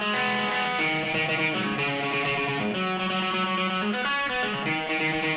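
Stratocaster-style electric guitar played alone through an amp, picking sustained chords that change about every half second to a second, with no drums.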